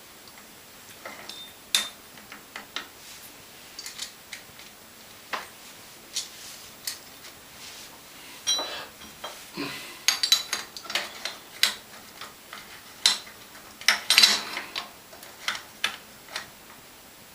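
Small metal clicks and clinks of tools on a bicycle pedal's axle as the locknut is fitted and tightened over the cone nut. There are scattered single clicks, with quick runs of clinks about ten and fourteen seconds in.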